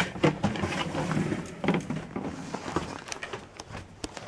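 Irregular knocks, clunks and rattles of things being handled and set down inside a small travel trailer, over a faint low hum.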